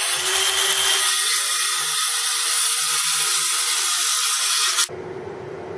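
Craftsman corded circular saw running and cutting through a wooden board, a loud steady whine and cutting noise that stops abruptly nearly five seconds in.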